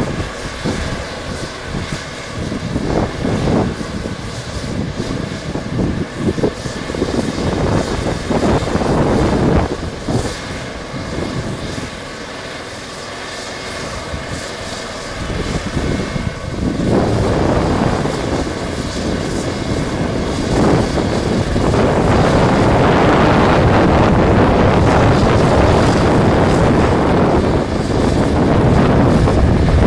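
Police Eurocopter EC135 helicopter running on the ground, a steady turbine whine with rotor noise, buffeted by wind gusts on the microphone. The sound grows louder and fuller a little past halfway through.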